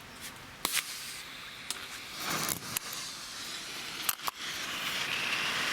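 Green smoke grenade firework being set off: a few sharp clicks and pops, then a steady hiss that swells from about four and a half seconds in as the grenade starts spewing smoke.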